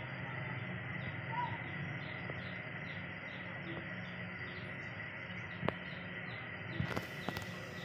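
An insect chirps over and over, about two to three times a second, over a steady outdoor hiss. A few sharp clicks come near the end.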